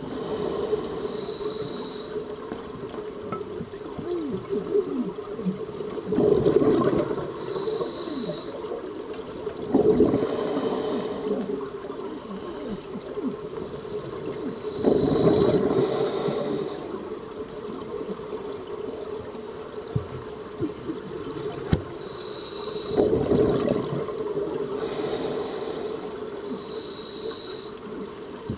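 Scuba breathing heard underwater: a hissing inhale through a diver's regulator every few seconds, and about four times a burbling rush of exhaled bubbles, the loudest sound. Under it runs a steady hum.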